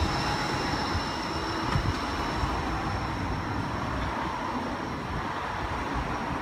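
Gold Coast G:link light-rail tram, a Bombardier Flexity 2, drawing in toward the stop: a steady electric whine with thin high tones and a hum that slowly falls in pitch.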